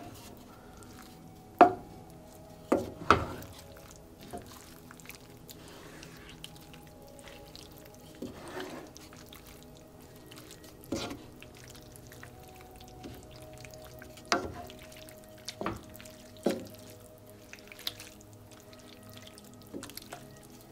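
A wooden spatula knocks and scrapes against a frying pan while stirring scrambled eggs into a tomato-chile salsa, about ten sharp knocks at uneven intervals. Soft background music with held notes plays underneath.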